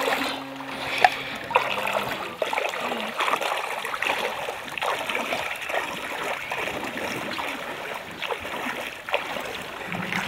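Feet wading through shallow water, with repeated irregular splashes as each step lifts and drops. A low steady hum sounds under it for the first two seconds, then cuts off.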